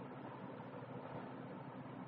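Steady hiss with a low hum underneath, unchanging and without any distinct clicks or events: background noise.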